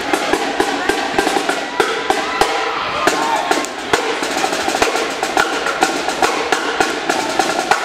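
High school drum line playing a fast snare-drum cadence, with rapid strokes following one another closely.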